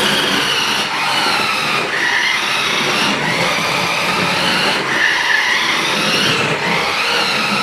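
1:10 scale Lamborghini Murciélago RC car's small electric motor whining and its tyres running on a hardwood floor. The whine rises and falls in pitch as the car speeds up and slows, with a few brief dips.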